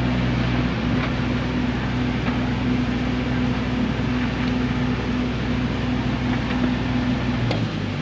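Stick (SMAW) welding arc crackling and hissing steadily as a bead is laid on a steel rail in the flat position, with a few small pops, over a steady low machine hum.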